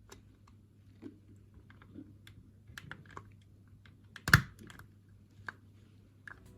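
Scattered light clicks and taps, about a dozen over several seconds, with one much louder sharp click a little past four seconds in.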